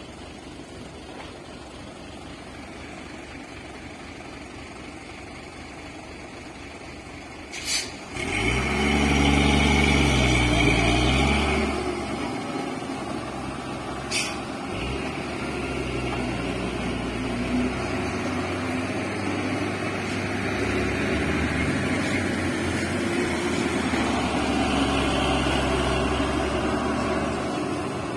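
Diesel engine of a heavy tanker truck labouring up a dirt-road rise: a low steady hum at first, then after about eight seconds the engine comes in loud, its pitch rising and falling as it revs, before settling into a steady hard pull. Two sharp clicks, one just before the engine swells and one about six seconds later.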